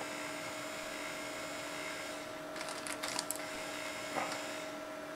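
Steady electrical hum with an even hiss behind it, with a few brief rustles and clicks about two and a half to four seconds in as the camera is handled and moved.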